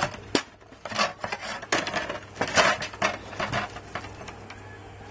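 Cured resin supports being popped off a 3D-printed model with sharp little clicks, with pieces clinking onto an aluminium foil tray: about six short clicks and rattles, dying away after about four seconds.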